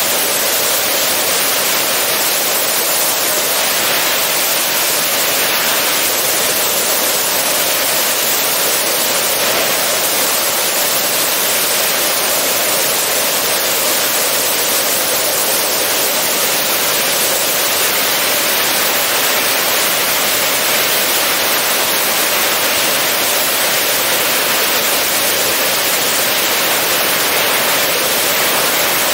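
Steady rushing wind noise over the microphone of a camera mounted on the outside of a Robinson R44 helicopter in flight, an even hiss with no distinct rotor beat standing out.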